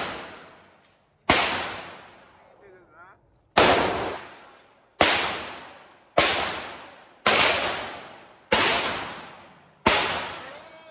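Gunshots fired one at a time, seven in a row about one to two seconds apart, each a sharp crack that dies away in a long echoing tail.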